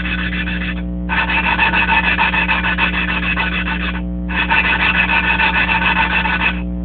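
A valve being lapped into its seat on a Briggs & Stratton 5 hp Raptor engine: the valve is twisted rapidly back and forth with grinding compound, giving a gritty rasping. It comes in stretches of a few seconds, with brief pauses about one second in and about four seconds in.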